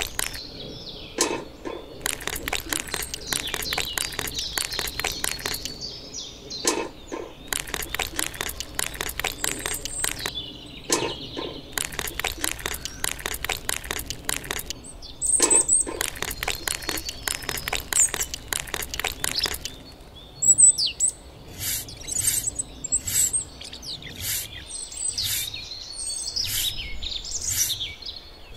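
Birds chirping over a dense run of sharp clicks and taps. About two-thirds of the way through, the clicking gives way to a regular ticking, a little under two per second.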